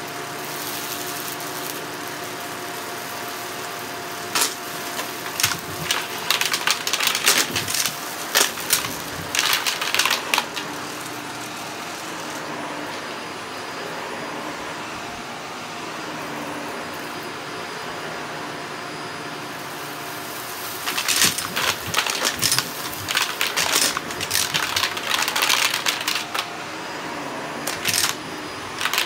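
Shark vacuum cleaner running on carpet with a steady motor hum. Twice, for several seconds each, dense rapid clicking and rattling rises over the hum.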